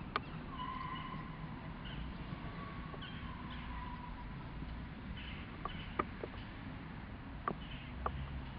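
Footsteps on stone steps as a few sharp, irregular clicks, over a steady low rumble. Faint drawn-out tones come twice in the first few seconds.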